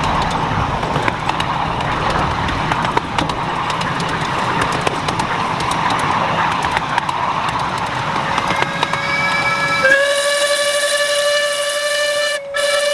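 A miniature railway train running, a loud rushing noise with scattered clicks. About nine seconds in, the locomotive's whistle starts blowing: a steady multi-tone whistle that swells a second later and is held to the end, with a brief break near the end.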